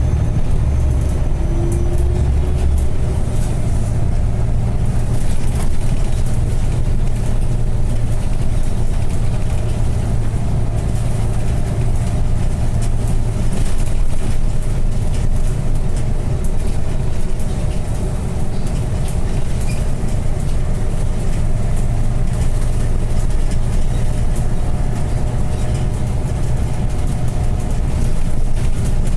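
A bus driving along: a steady engine drone with road noise, and no sharp changes.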